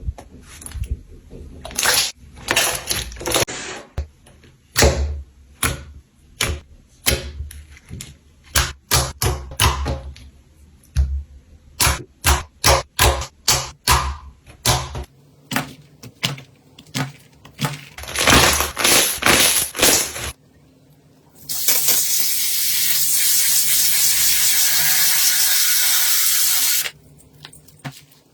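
Slime being squeezed and poked, giving a quick run of sticky pops and crackles for about twenty seconds. Then comes a steady hiss lasting about five seconds, followed by a few more pops.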